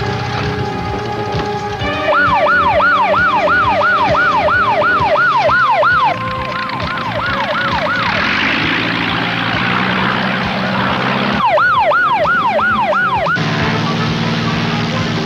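Emergency-vehicle siren yelping, rising and falling about three times a second, heard in two spells broken by a few seconds of rushing noise. Low sustained music tones lie underneath.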